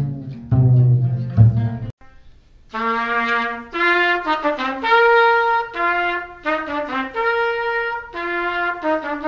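For about two seconds a double bass and a guitar play together. After a short break a solo trumpet plays a melody of held notes in short phrases, recorded binaurally.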